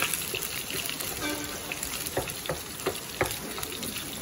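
Bacon and pork embutido frying in a nonstick pan, the rendered bacon fat sizzling steadily with scattered sharp pops, while a wooden spoon stirs the bacon.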